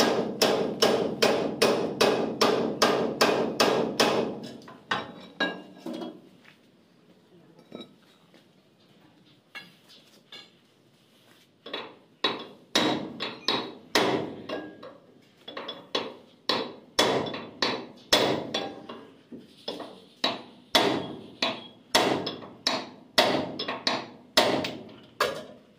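Heavy hammer blows on the steel pulley and shaft of a Swaraj 8100 combine harvester. A quick run of about three blows a second lasts some four seconds, followed by a few scattered blows. After about twelve seconds the blows come steadily, about two a second.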